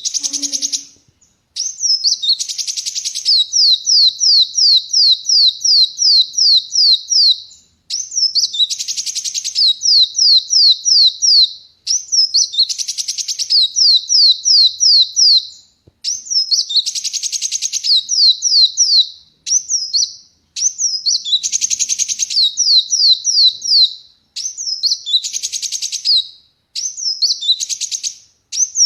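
Kolibri wulung sunbird singing loud, repeated phrases about every four seconds: each starts with a harsh, scratchy burst and runs into a rapid string of about ten high, downward-sliding notes.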